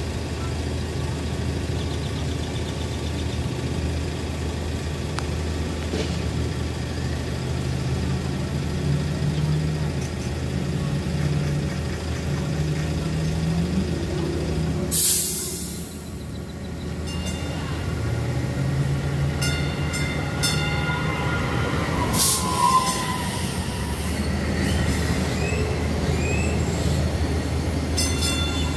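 DART light rail train approaching and pulling into a station: a steady low running hum with slowly rising and falling low tones, a short loud rush of noise about halfway through, then wheel squeal and high thin tones as the cars roll in.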